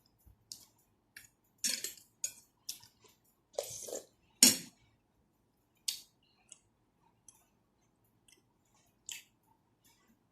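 Close-miked chewing and eating: scattered wet mouth clicks and smacks, with a run of louder bursts between about two and five seconds in, then only faint ticks.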